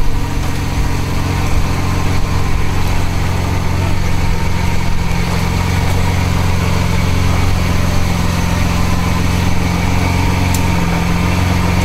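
Lamborghini Veneno's V12 engine idling steadily.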